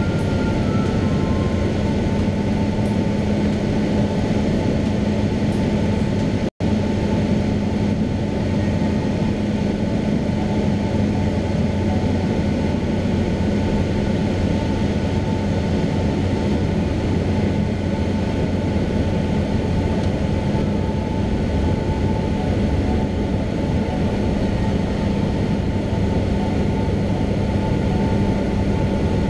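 Cessna 172's piston engine and propeller running steadily in cruise flight, a constant drone heard inside the cabin. The audio drops out for an instant about six and a half seconds in.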